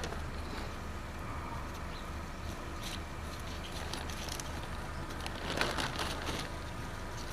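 Potting soil being scooped and pressed in by hand, in a few short crunching scrapes, the longest and loudest about two thirds of the way through, over steady wind noise on the microphone.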